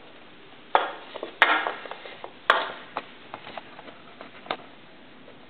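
Wooden dog puzzle board with round wooden bars cut from a fence post clattering: a few sharp wooden knocks in the first half, the loudest about a second and a half and two and a half seconds in. Then come lighter ticks as the bars are nudged and shifted.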